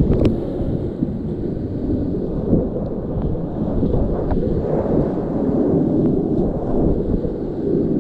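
Whitewater rapids rushing loudly around a kayak, a dense, muffled rumble close to the water, with splashes from paddle strokes and water hitting the boat; a sharp splash comes right at the start.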